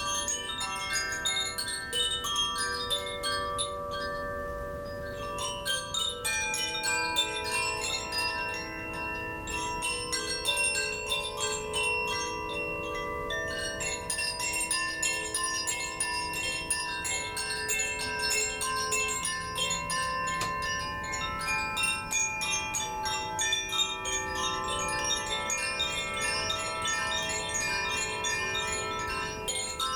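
Koshi chimes played by hand: a rapid, continuous tinkling of strikes over many overlapping ringing tones.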